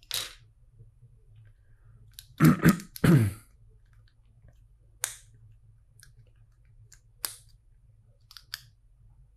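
Plastic LEGO pieces being handled and pressed together: a series of sharp separate clicks, with two louder clattering sounds about two and a half and three seconds in.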